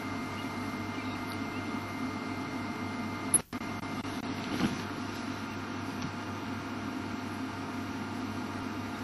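Steady background hum with hiss, carrying several constant tones. About three and a half seconds in there is a sharp click followed by a momentary dropout, and a short louder sound about a second later.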